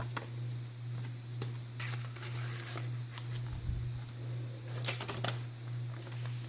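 Pages of a handmade paper junk journal being turned and handled, with crackly paper rustles coming in bursts about two seconds in and again about five seconds in, and a brief low thump between them. A steady low hum runs underneath.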